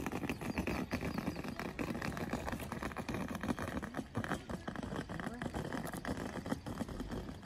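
Footsteps of people walking on a paved road, with hikers' voices in the background.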